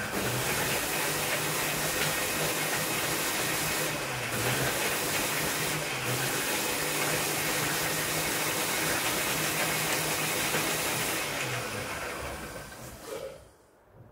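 Electric mixer grinder running steadily, its steel jar blending lemon halves with sugar and water, with a low motor hum under the noise of the blades. About twelve seconds in it is switched off and winds down to quiet.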